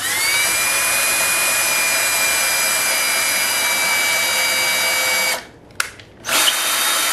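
Cordless drill boring a pilot hole into a thick black walnut slab. The motor whine rises as it spins up, runs steady for about five seconds and stops, then the drill runs again briefly near the end.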